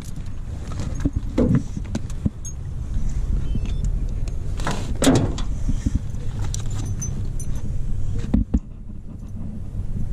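Clinks and rattles of a dog GPS tracking collar and gear being handled on a pickup's tailgate, with scattered short clicks over a steady low rumble.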